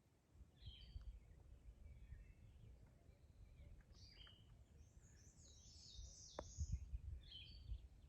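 Faint, scattered bird chirps over a low rumble, with one sharp click about six seconds in.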